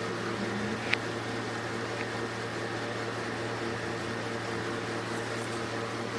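Steady hum of an ice cream roll pan machine's cooling compressor and fan, with a short sharp tap about a second in.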